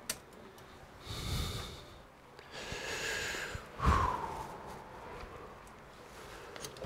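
A man breathing and sniffing close to the microphone, in a few short hissy bursts. There is a click at the start and a louder short sound falling in pitch about four seconds in.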